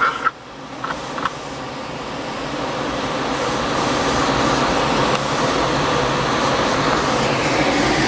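Steady engine and airflow noise inside an aircraft cabin in flight, swelling over the first few seconds and then holding even.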